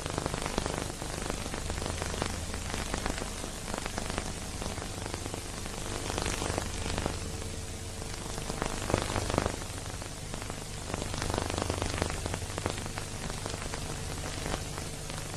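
Steady crackling hiss with many small pops and a faint low hum: the surface noise of an old silent-film transfer that has no soundtrack.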